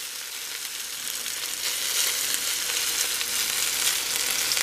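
Cornmeal-coated okra and squash sizzling and crackling in hot oil in a cast iron skillet, while a spatula spreads the pieces out across the pan. The sizzle grows a little louder about a second and a half in.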